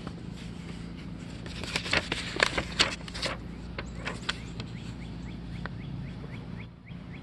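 Paper instruction leaflet being unfolded and handled: a cluster of crisp rustles and crackles about two seconds in, then softer paper handling.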